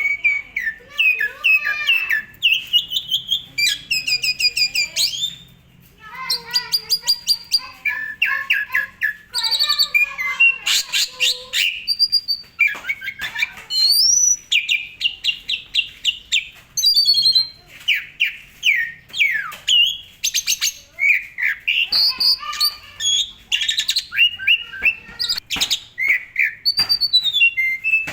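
Asian pied starling (jalak suren) singing a long, varied song of whistled glides, fast rattling series of repeated notes and harsh notes, with a short lull about five to six seconds in.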